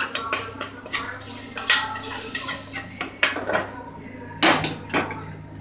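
A spoon scraping and clinking against a small pan as fried tempering is emptied into a pressure cooker of sambar, then a perforated ladle stirring and knocking against the cooker. The sharp metal clinks come about a second apart over a steady low hum.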